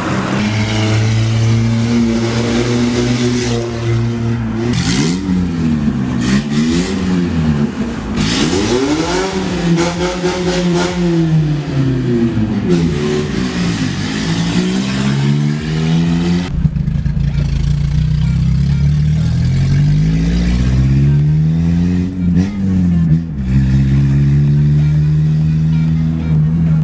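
Fiat Palio with an exhaust cutout (difusor de escape) running loud in a tunnel. The engine is revved up and falls back again and again. About two-thirds through a deeper rumble sets in, and the note is held steady near the end.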